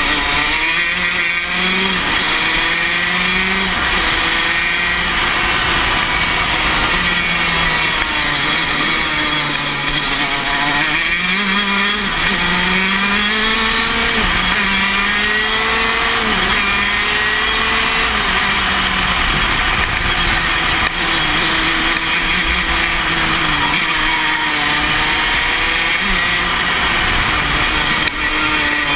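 KZ125 shifter kart's 125cc two-stroke engine at racing speed, its pitch repeatedly climbing and then dropping back as the kart accelerates out of corners, changes gear and brakes, under a steady rush of wind noise on the onboard microphone.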